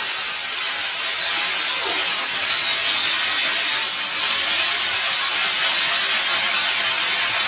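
Studio audience applause after the song, sped up and raised in pitch so that it comes out as a dense hiss-like wash, with a few thin high squealing cheers over it.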